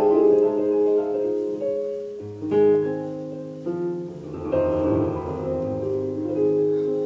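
Piano-voiced keyboard being played: held chords under a melody, with a low bass note coming in a little over two seconds in.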